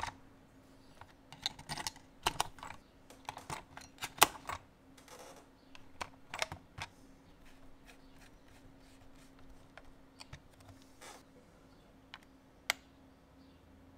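Light plastic clicks and rattles from the battery compartment of a Maginon QC 707SE drone's remote controller being opened and batteries fitted. The clicks come thick in the first half, then thin out, with one sharp click near the end.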